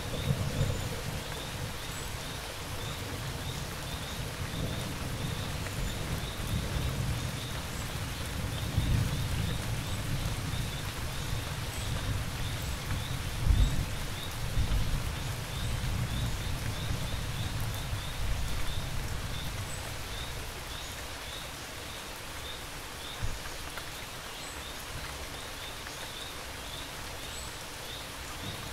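Steady rain with low rolling thunder that swells through the middle and peaks about halfway. Crickets chirp in a fast, even pulse underneath.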